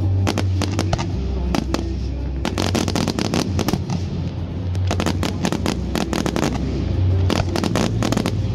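Fireworks display: rapid bangs and crackling of aerial shells bursting, coming thickest in two volleys, one about two and a half seconds in and another near the end, with music playing underneath.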